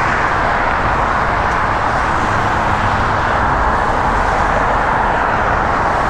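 Steady road traffic, the unbroken hiss and rumble of tyres on a busy highway.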